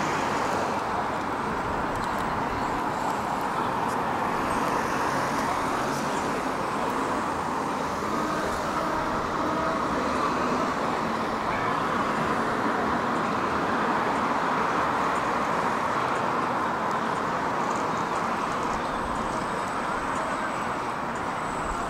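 Steady vehicle and traffic noise, an even rumble with no single event standing out.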